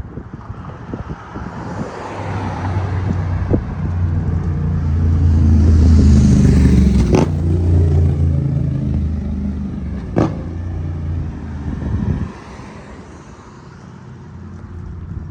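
A motor vehicle's engine passing close by, swelling to its loudest about six seconds in and fading away over the next several seconds. Two sharp clicks are heard around the middle.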